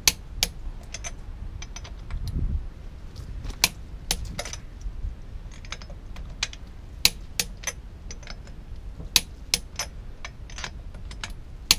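Irregular sharp clicks and light metallic clinks of small metal parts being handled, with a short low bump about two seconds in.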